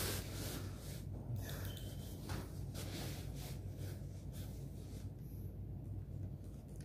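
Laptop keyboard keys being tapped: soft, irregular clicks over a steady low hum.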